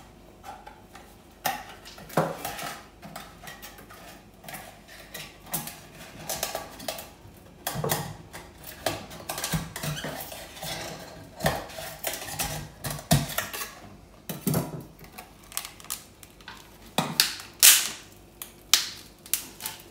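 Fillet knife working into a bicolor razor clam's brittle shell to open it: an irregular run of sharp clicks, knocks and scrapes. The loudest strokes come a couple of seconds before the end.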